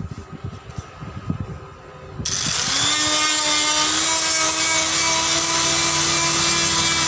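Electric grinder with a rubber-buffing wheel switched on about two seconds in, spinning up and then running steadily as it buffs the rubber of a truck inner tube around a puncture, roughing it for a vulcanized patch. Before it starts there are a few soft knocks of handling.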